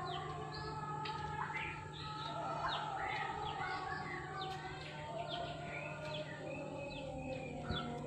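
Sunbirds, the 'kolibri ninja' of Indonesian bird-keepers, chirping: many quick, high chirps and short trills overlapping one another, over a steady low hum. This is a lure call used to draw the birds in.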